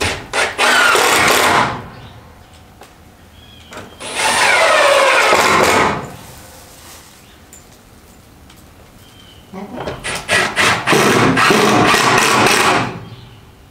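A power tool working on wood in three bursts of one to two seconds each, with pauses between. The first and last bursts start with a few sharp clicks, and the pitch falls during the middle one.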